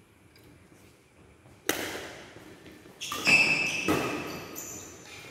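Badminton rally: sharp racket strikes on a shuttlecock echoing in a large hall, the first about a third of the way in, then a louder run of hits and court noise from about three seconds.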